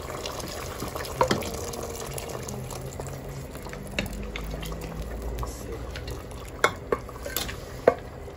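Mutton and its stock poured and scraped from a pressure cooker into a pot of simmering vegetable stew: liquid splashing and sloshing, with several sharp knocks of a wooden spatula against the metal cooker.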